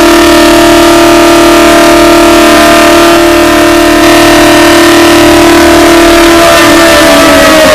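Civil defense siren holding one very loud steady tone, then starting to wind down, falling in pitch, near the end.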